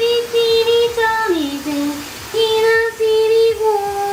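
A woman singing a short tune in a high voice without clear words: long held notes, dipping to a lower note about a second in, then back up to the first pitch.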